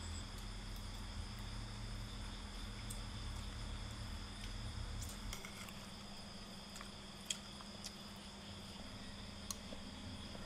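Crickets chirring steadily, with a low hum underneath that stops about five seconds in. A few light clicks of a spoon against dishes come near the end.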